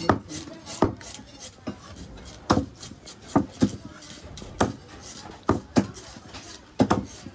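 Fish being chopped up with a blade: about ten sharp chops at an uneven pace, some coming in quick pairs.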